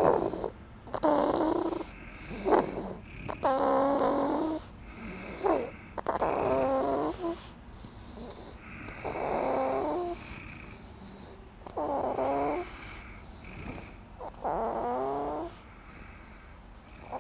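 Steady snoring: pitched snores about a second long, repeating every two to three seconds.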